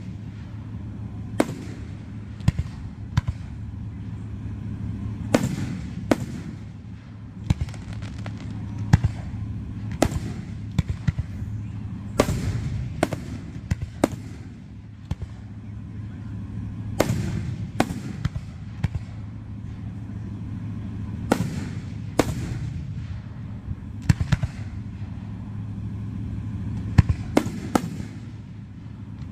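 Aerial firework shells bursting in a display: many sharp bangs at irregular intervals, every second or two, some coming in quick clusters of several.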